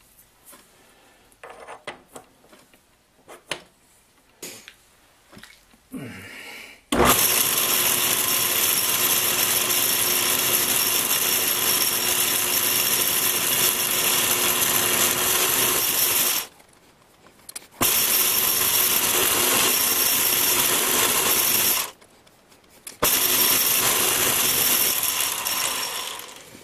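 A few light clicks of hands handling tooling. Then, about seven seconds in, the Atlas 618 bench lathe starts up with a loud, steady whir of motor and belt drive as it turns down a small shoulder bolt. It cuts out abruptly twice for about a second each time and starts again.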